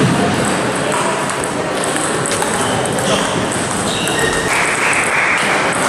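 Table tennis balls clicking off tables and bats, with several tables in play at once in a large hall.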